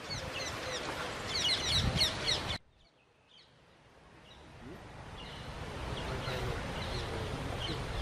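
Many birds chirping and calling together in dense, quick high chirps over a low outdoor rumble. About two and a half seconds in the sound cuts out abruptly, then fades back in with fainter chirping.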